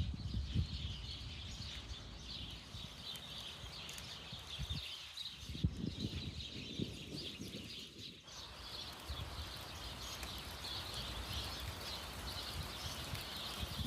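Outdoor rural ambience: a steady chorus of high chirping, with low rumbling gusts underneath that are strongest around the middle.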